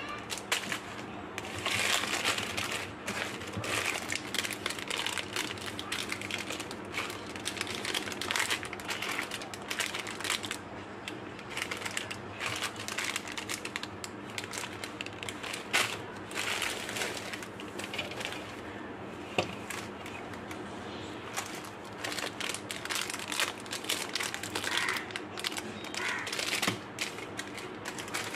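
Crinkly plastic candy wrappers being twisted and peeled open by hand: an irregular crackling with sharper crackles now and then.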